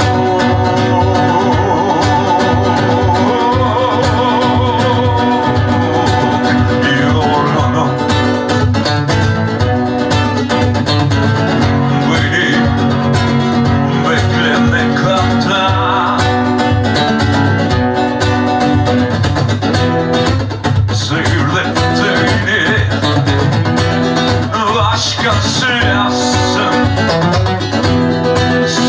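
Live solo acoustic guitar playing, with a man singing along.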